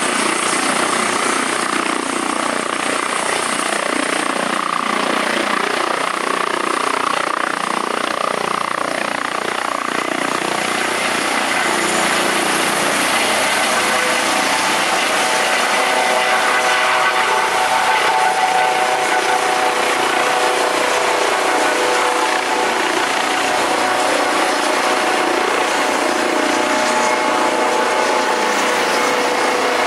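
Rescue helicopter lifting off and climbing away, its turbines and rotor running steadily at take-off power. About halfway through, a whine of several steady tones rises out of the rotor noise as the helicopter climbs.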